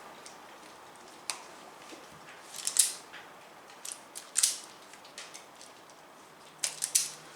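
Hand wire stripper cutting and pulling insulation off electrical wires: scattered sharp clicks of the tool's jaws and several short rasping scrapes as the insulation is stripped away.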